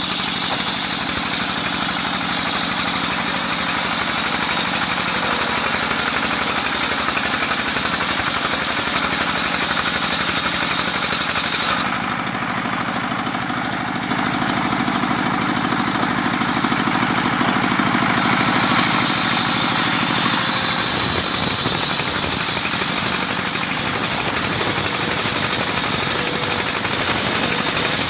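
Engine-driven sawmill running steadily as its saw cuts through a coconut palm trunk, with a bright hiss of cutting. The hiss drops away for several seconds just before the middle, then picks up again.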